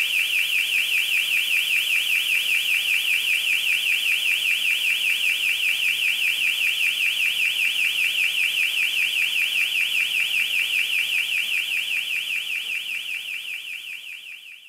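Electronic intruder-alarm sounder warbling rapidly and steadily, its high tone sweeping up and down several times a second as the security fog fills the room. It fades out near the end.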